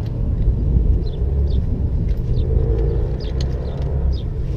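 Ultralight camp chairs being taken apart, with light clicks and rattles from the frame poles as they are pulled free. Under this runs a steady low outdoor rumble, with a few short high chirps.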